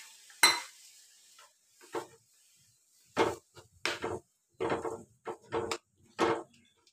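Steel spatula stirring thick masala gravy in an iron kadai: a sharp knock against the pan about half a second in, then a run of short scraping strokes, roughly one every half second to second.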